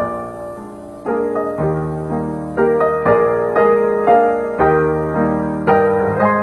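Piano music, with notes and chords struck about twice a second.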